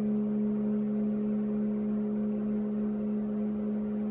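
A steady hum holds one constant pitch throughout, with a few faint crisp ticks of a bearded dragon crunching dehydrated vegetables. Near the end there is a short run of faint, high, evenly spaced chirps.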